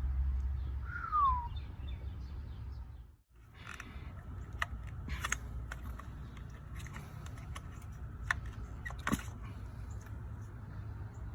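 Steady low rumble with a single falling bird chirp about a second in; after a brief dropout, a few sharp clicks and taps, scattered and irregular.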